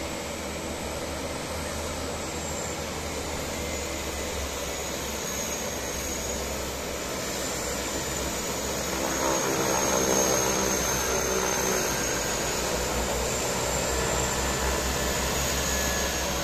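The twin turboprop engines of a de Havilland Canada DHC-6 Twin Otter running as it taxis in after landing, with a steady high turbine whine that wavers slightly in pitch. The engine noise swells loudest about ten seconds in as the aircraft turns onto the apron.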